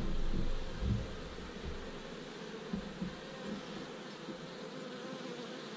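Carniolan honeybees buzzing steadily over an open hive during an inspection, with a low rumble of handling in the first second or so.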